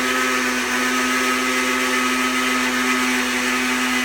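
Countertop electric blender running at a steady speed, blending banana, strawberries and orange juice into a smoothie.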